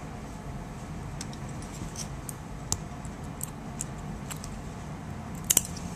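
Light, scattered clicks of metal surgical instruments (forceps and needle holder) being handled while suturing, with a sharp double click near the end, over a steady low hum.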